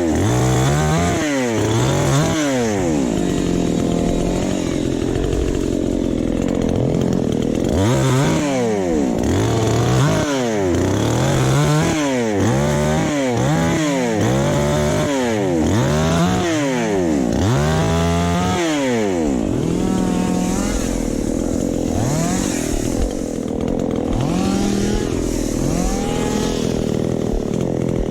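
Chainsaw running and being revved up and down repeatedly, its pitch rising and falling every second or two as the throttle is worked.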